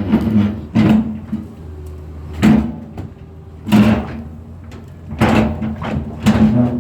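Heavy drilling machine running with a steady low drone, broken by about six sudden loud bursts of noise at irregular intervals.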